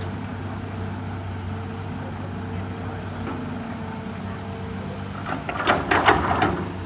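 Hitachi EX200 excavator's diesel engine running steadily, with a loud burst of clattering knocks lasting about a second, about five seconds in.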